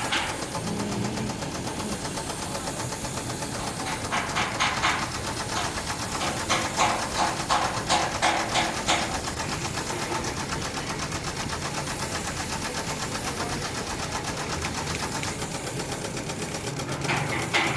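A machine running steadily with a fast knocking pulse, in a few louder stretches: about four seconds in, again from six and a half to nine seconds, and near the end.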